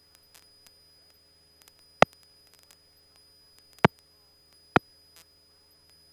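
Aircraft radio feed almost silent between transmissions, with a faint steady electrical hum, broken by three sharp clicks about two, four and five seconds in.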